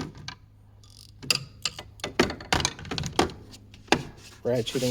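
Hand tools in a mechanic's tool set being handled in their case, giving a string of sharp, irregularly spaced clicks.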